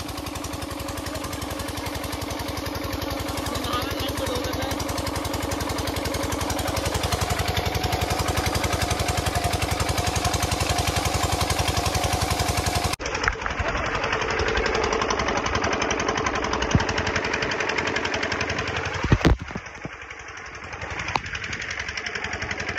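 Engine running the tubewell pump with a fast, even thudding, over the rush of water pouring from the outlet pipe. About thirteen seconds in the sound changes abruptly and carries on duller, with a couple of sharp knocks a few seconds later.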